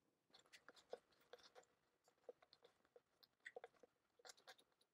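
Near silence, with faint, irregular soft clicks and squishes from hands kneading sticky mozzarella and almond-flour dough in a bowl.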